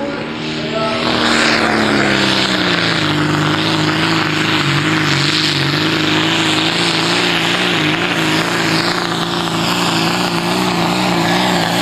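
John Deere 4440 Pro Stock pulling tractor's diesel engine at full power, hauling the weight-transfer sled down the track. The engine gets louder about a second in, then holds a steady high drone that wavers slightly in pitch.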